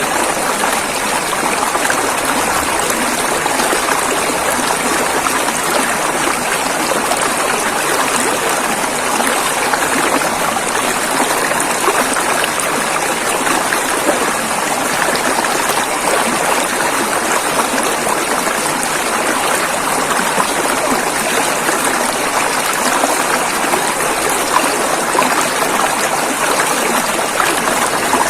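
River water flowing steadily over rocks, a constant rushing splash with no change in level.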